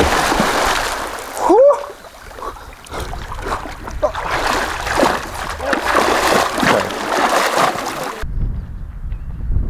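A person diving into a lake with a big splash, then swimming strokes that slosh and splash the water, with a short rising cry about a second and a half in. About eight seconds in the splashing cuts off and gives way to wind rumbling on the microphone.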